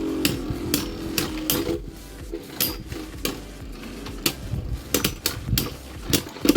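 Two spinning Beyblade Burst tops, Vanish Longinus and Guilty, battling in a plastic stadium. Their spinning hum fades in the first second and a half, while the tops knock together and against the stadium wall in a run of sharp, irregular clicks.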